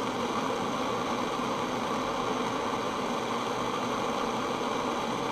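Gas blowtorch flame burning with a steady hiss while a stainless-steel mesh wick is heated in it to oxidize it.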